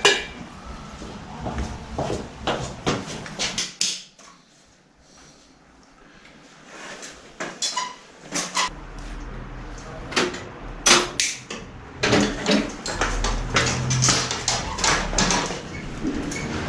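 Irregular clicks, knocks and clatter of hands at work, with a quiet pause of about two seconds some four seconds in. From about nine seconds a low rumble of handling noise joins denser knocking.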